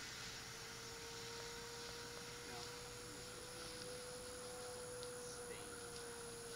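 Faint, steady whine of a distant electric-powered foamboard speed plane's motor and propeller, one pure tone that rises slightly in pitch about four seconds in and then eases back down, over a constant hiss.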